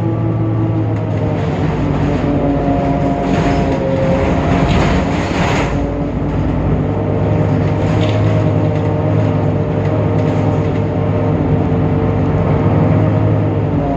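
Temsa Avenue LF city bus under way, its DAF PR 228 diesel and ZF Ecolife automatic gearbox running with a strange, out-of-the-ordinary sound: several steady whining tones that slowly rise and fall in pitch. A rougher, noisier stretch comes about three to six seconds in.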